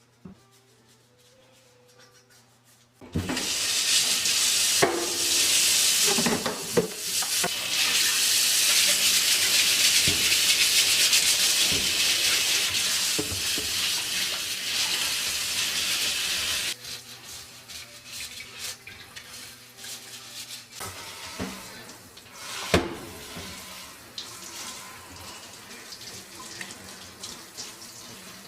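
Water running hard, starting suddenly about three seconds in as a loud steady hiss, then dropping to a quieter flow for the rest of the stretch, with scattered knocks and clatters.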